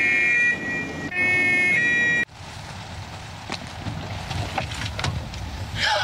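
Police car's two-tone siren sounding, alternating between a high and a low note, then cut off abruptly a little over two seconds in. What follows is a much quieter stretch with a few faint clicks.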